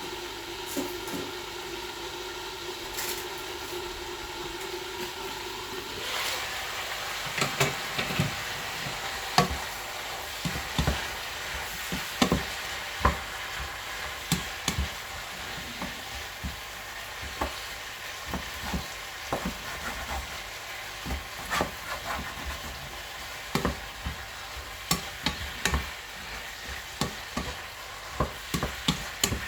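Stir-frying: food sizzling in a hot pan. For about the first six seconds a steady hum runs under the sizzle; then a spatula starts stirring, scraping and clanking against the pan in irregular strokes.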